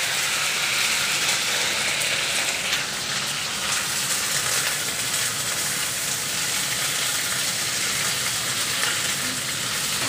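Mustard seeds and dried red chillies sizzling steadily in hot mustard oil, with scattered small pops as the seeds spatter.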